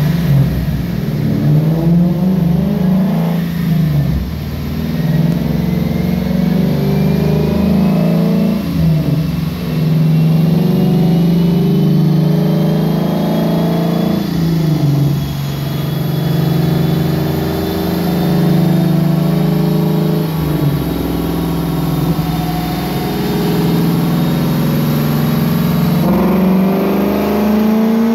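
Lexus IS F's 5.0-litre V8, fitted with long-tube headers, a tuned intake and an Xforce Varex exhaust, revving hard under load on a chassis dyno. The engine note climbs and then drops briefly about every five seconds, with a thin whine rising slowly underneath.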